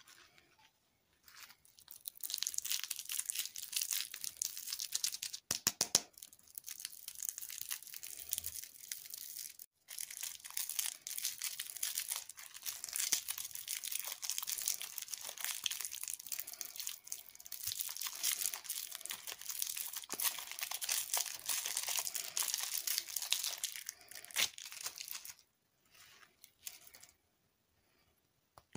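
Thin plastic lollipop wrapper crinkling and rustling as it is pulled off by hand, with a couple of short pauses. It stops a few seconds before the end, leaving only faint rustles.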